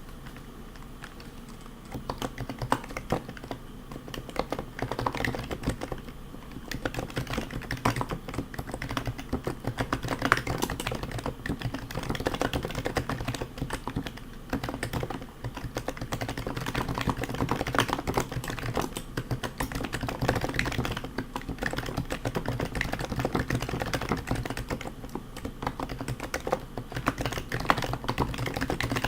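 Continuous fast typing on a custom Happy Hacking Keyboard (JP layout) with Topre switches fitted with heavy BKE rubber domes, silenced purple sliders and Hi-Pro keycaps. The keystrokes begin about two seconds in after a quieter moment.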